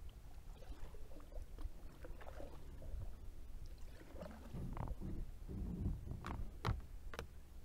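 Kayak paddle strokes in lake water, with soft splashes and drips over a low steady rumble; in the second half come several sharp knocks and splashes as the paddle works close to the bank.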